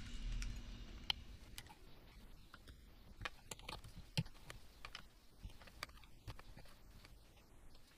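Metal hand tools clicking and tapping against the valve-train parts of a Detroit Diesel 2-53 cylinder head: a long bar levering at a rocker and a small tool working among the followers and springs. The clicks are light and irregular, with the sharpest about one second in and about four seconds in.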